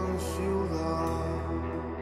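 Ambient music played from a vinyl LP: sustained, slowly shifting tones over a steady low drone.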